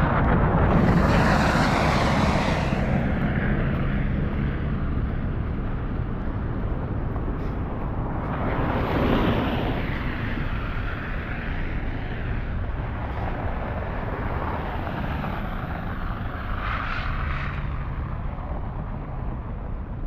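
Cars passing on a wet, slushy road, their tyres hissing through the slush in three swells as each goes by, the first and loudest about a second in, over a steady low rumble of traffic.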